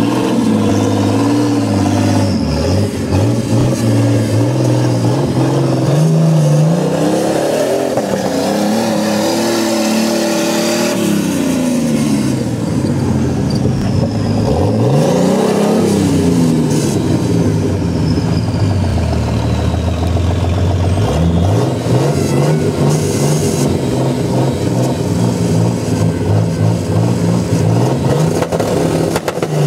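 Engine of a modified Jeep off-road trial special, revving up and down again and again as the driver works the throttle to climb through a muddy gully. The pitch rises and falls several times, with a deep dip and climb about halfway through.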